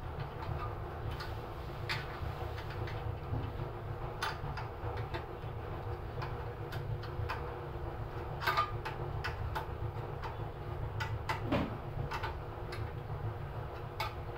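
Scattered, irregular light metallic clicks and taps of hands and tools working on a small engine's mount and V-belt, which drive a tofu grinder, while the belt tension is set. A steady low rumble lies underneath.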